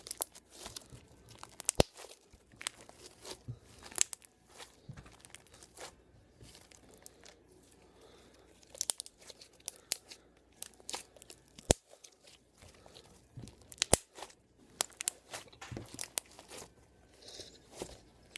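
Mixed slime being kneaded and stretched by hand, giving irregular sharp clicks and crackling pops.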